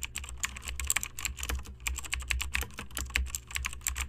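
Computer-keyboard typing sound effect: a quick, uneven run of key clicks, laid over on-screen text appearing letter by letter.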